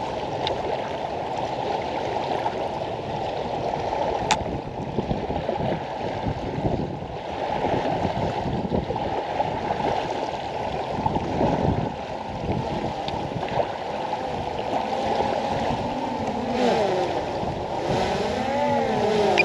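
Strong wind rumbling on the microphone. In the last few seconds a wavering hum rises and falls in pitch through it.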